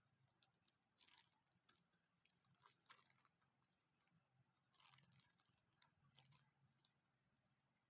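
Near silence: faint scattered rustles and clicks, a few slightly louder around a second, three seconds and five seconds in, over a faint high chirp that repeats in short even pulses.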